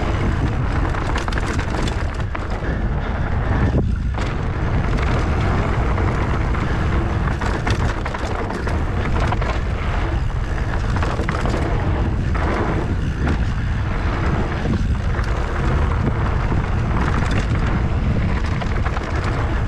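Mountain bike riding down a dirt trail: heavy wind buffeting on the microphone over steady tyre noise, with frequent clicks and rattles from the bike.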